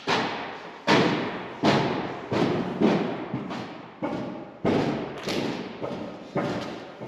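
A hose being pulled out of a baler hand over hand. Each tug gives a thump followed by a short dragging fade, repeating about every two-thirds of a second.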